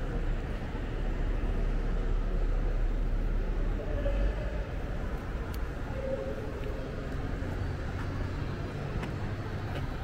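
Street traffic: the low rumble of a passing vehicle's engine and tyres over steady road noise, a little louder from about two to four seconds in.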